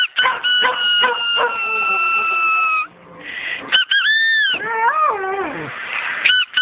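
Squeaker from a squeak toy blown as a steady high whistle, broken by several short gaps, then an arched squeal. About five seconds in, a cocker spaniel answers with a wavering, falling howl.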